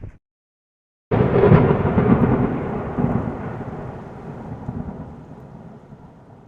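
A thunderclap starting suddenly about a second in, then a long rumble that slowly fades away, with rain.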